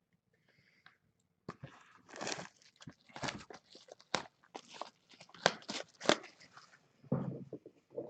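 Plastic wrapping on trading card boxes and packs crinkling and tearing as they are opened, in a run of short irregular crackles that starts about a second and a half in.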